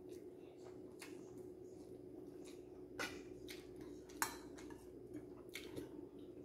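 A few faint clicks of a metal spoon against ceramic dishes, the sharpest about three and four seconds in, over a faint steady hum.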